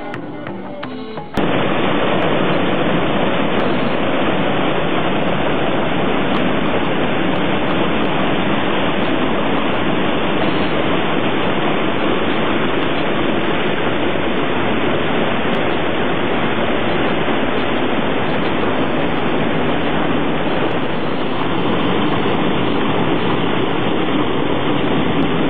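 Loud, steady rush of fast river water tumbling over rocks, cutting in suddenly about a second in after a moment of guitar music.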